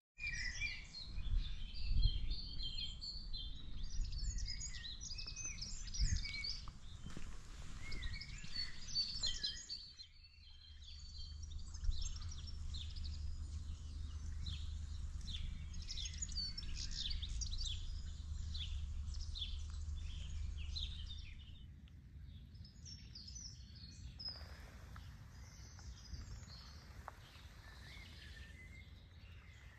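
Many birds chirping and singing over a low steady rumble, the mix of sound shifting twice, about a third of the way in and again near the two-thirds mark.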